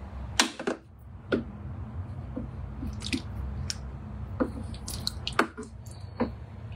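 A wooden spoon knocks and scrapes against a Thermomix's stainless-steel bowl while scooping coconut soup, with wet sloshes and drips of liquid. The spoon gives about ten separate clicks and taps, the sharpest near the start and about five seconds in, over a steady low hum.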